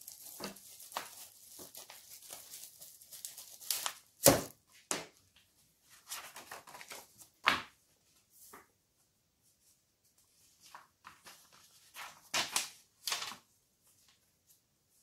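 Paper instruction manual being handled and its pages turned, with soft rustling and a few short knocks and taps, the loudest about four seconds in.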